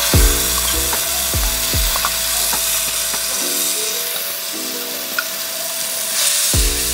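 Blended chili, shallot and garlic spice paste hitting hot oil in a frying pan and sizzling loudly and steadily, with music playing underneath.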